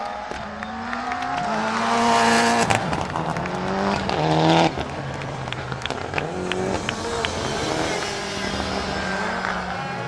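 Turbocharged rally car engines revving hard, climbing in pitch through several gear changes. Then the Toyota Celica GT-Four ST185 Group A car's turbocharged four-cylinder engine pulls hard with a quick run of sharp pops from the exhaust as it slides away.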